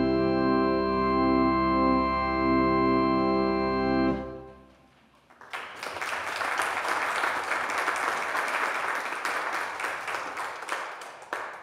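Church organ holding the final chord of a piece, released about four seconds in and dying away in the room's echo. An audience then applauds for about six seconds.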